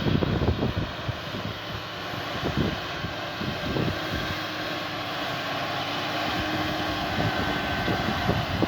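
Tractor engine running steadily under load while ploughing, a distant drone that grows slightly louder toward the end. Irregular low thumps are heard over it in the first few seconds.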